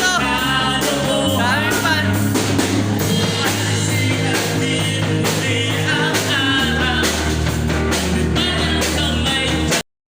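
Rock-style music with a singing voice, guitar and a steady beat; it cuts off abruptly to silence near the end.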